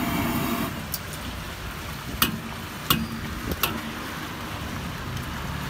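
Metal ladle clinking against a steel wok four or five times, one to two seconds apart, as sweet potato balls are stirred and pressed in it, over a steady background hiss.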